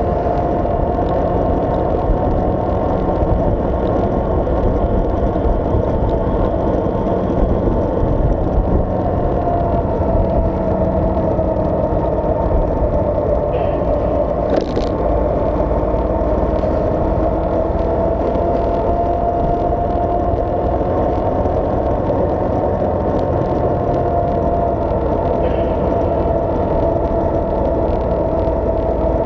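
Vehicle engine and road noise while driving: a continuous drone with a steady engine tone that sags slightly and rises again, and a single sharp click about halfway through.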